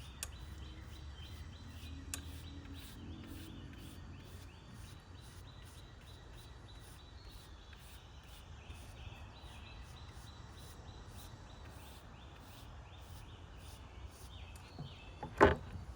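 Outdoor ambience with a steady low rumble and small birds chirping over and over in quick high notes. A single sharp knock comes near the end.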